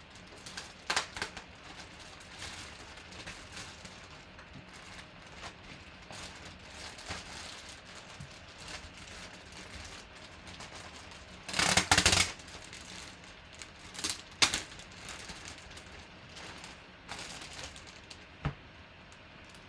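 Handling noises: scattered clicks and knocks of items being moved and set down, with a louder half-second burst of crackling about twelve seconds in and two sharp knocks a couple of seconds after it.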